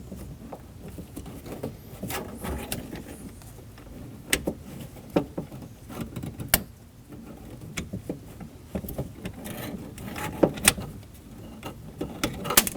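Irregular small clicks, taps and light rattles of hands working the latch cable's metal end fitting loose from the front door latch inside a Ford Edge door.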